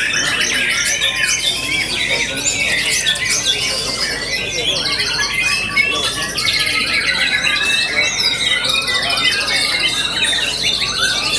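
White-rumped shamas singing in contest: dense, overlapping phrases of high whistles, trills and rattling notes, with a long, slightly falling high trill through the second half.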